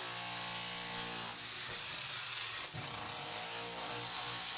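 Electric demolition hammer chiselling out a forge's old refractory floor lining, running steadily with two short dips in the hammering.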